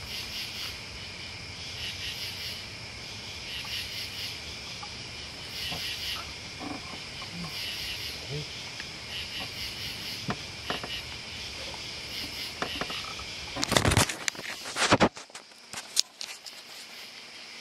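Crickets chirping in a steady, pulsing night chorus. Near the end come a few loud knocks and rustles of the camera being handled, after which the low background rumble drops away.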